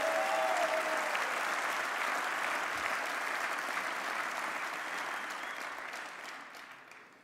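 Crowd in a meeting hall applauding, the clapping dying away over the last second or two.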